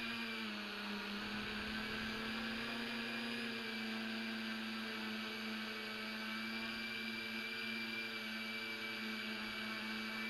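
Tricopter's motors and propellers humming steadily as heard from its onboard camera, the pitch dipping slightly about half a second in and then holding.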